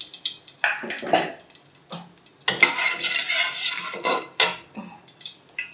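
Metal slotted spoon scraping and clinking against the inside of a metal kadhai, spreading a little oil around the pan. The scraping is busiest in the middle of the stretch, with lighter clicks before and after.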